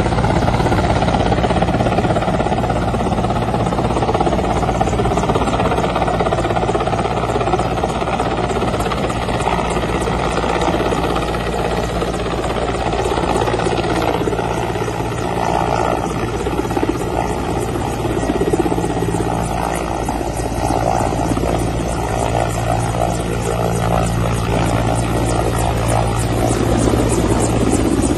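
Helicopter rotor and engine noise: a steady, unbroken drone with a low hum.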